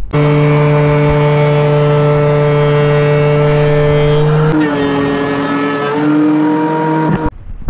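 DeWalt benchtop thickness planer running with a loud, steady motor whine. About halfway through the pitch drops slightly, and the sound cuts off suddenly near the end.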